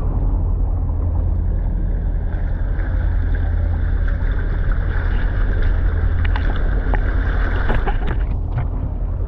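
Water rushing and splashing under the bow net of a moving catamaran, with a steady heavy rumble of wind on the microphone. The rush thickens from about two seconds in, with scattered small splashes.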